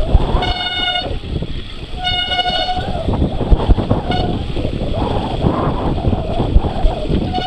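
Mountain bike disc brakes squealing in two short pitched bursts, over the steady rumble and rattle of the bike rolling down a muddy trail.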